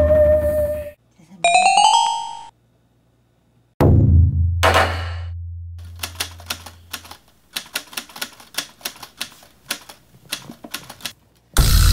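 Edited-in sound effects over music: a short rising chime, then a low whoosh with a bass hit, then a run of typewriter-key clicks, about four a second, as captions type out on screen. Loud music with a drum roll comes in near the end.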